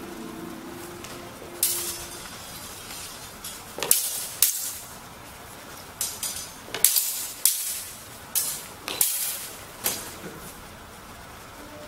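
Steel broadswords clashing in a sparring exchange: about eight sharp metallic clashes, each with a brief ring, most of them coming in quick succession in the middle of the stretch.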